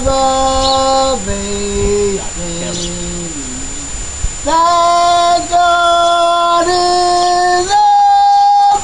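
An older man singing unaccompanied, holding long notes one after another. The notes step down over the first few seconds, then climb to a long high held note near the end.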